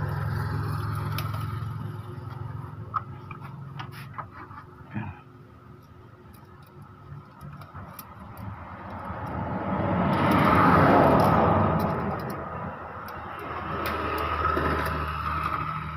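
Passing motor vehicles: engine noise swells and fades several times and is loudest about eleven seconds in. A few light plastic clicks and knocks come about three to five seconds in, as printer parts are handled.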